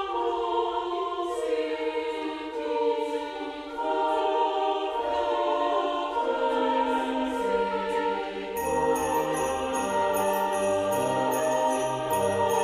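Christmas background music with sustained melodic notes; about two-thirds of the way in, a bass line and jingle bells shaken in a steady rhythm come in.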